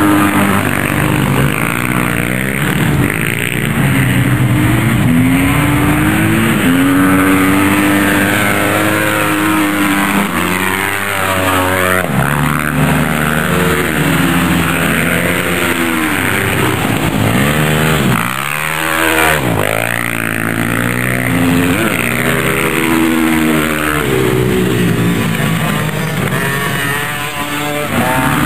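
Several dirt-bike engines revving hard and accelerating on an ice track, their pitch rising and falling again and again as the bikes go round.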